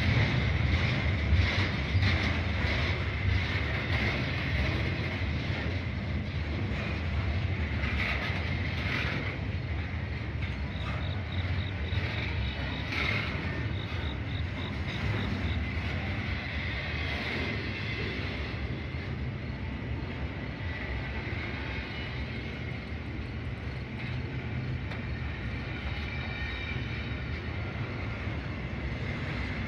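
Norfolk Southern freight train's double-stack container cars rolling past on the rails: a steady rumble with regular clicks of wheels over the track, clearest in the first few seconds, and a thin high-pitched squeal running through it. The sound eases slightly as the train goes by.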